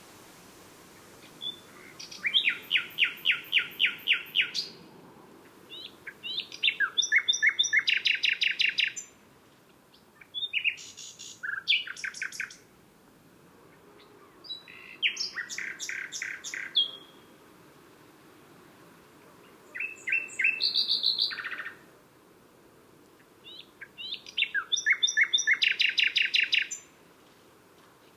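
Common nightingale singing: six phrases of fast, repeated notes, each lasting about two to three seconds, separated by pauses of one to two seconds.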